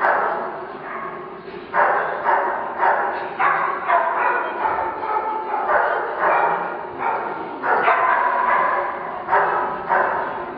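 A dog barking over and over, about one and a half to two barks a second, each bark echoing in a large indoor riding hall.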